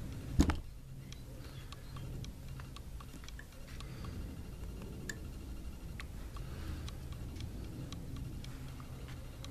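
Small handling noises at a fly-tying vise: faint, scattered light clicks and ticks from tools and materials, with one sharp click about half a second in, over a low steady hum.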